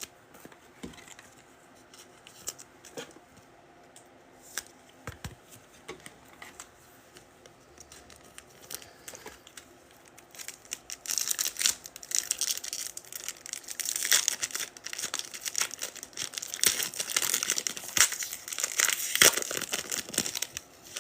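A foil trading-card pack wrapper being torn open and crinkled: a few light handling clicks, then from about halfway in a long stretch of dense crinkling and tearing.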